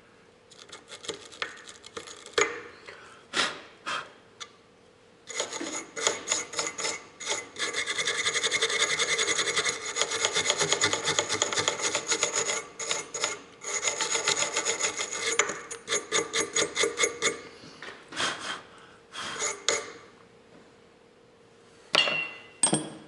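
Sandpaper rubbed quickly back and forth between the contact points of an electric car horn, cleaning the contacts. A few short bursts of strokes, then a long, fast run from about five seconds in to about seventeen, and a few more strokes near the end.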